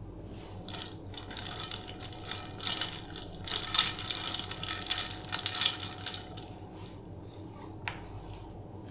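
Hands swishing saury fillets through a stainless-steel bowl of ice water: water sloshing and ice cubes clinking against the metal bowl, loudest in the middle, then a single sharp click near the end.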